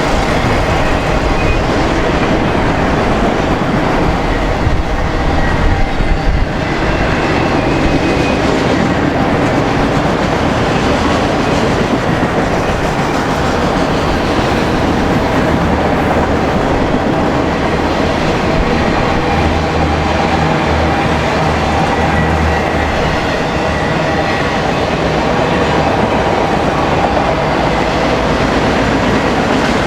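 BNSF autorack freight train rolling past, a steady, loud noise of steel wheels running on the rails.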